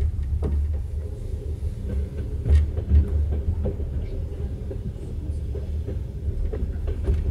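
Inside a passenger train carriage in motion: a steady low rumble from the running gear, with scattered short knocks from the wheels over the track.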